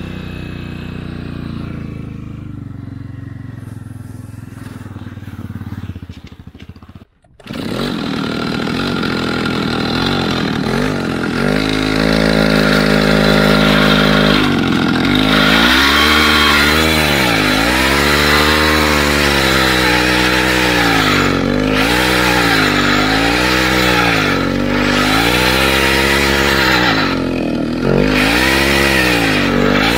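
Small two-stroke chainsaw engine of a homemade all-wheel-drive motorcycle running under way. For the first several seconds it runs steadily and quieter; after a short break it comes in louder, holds at high revs briefly, then its pitch rises and falls again and again as the throttle is worked.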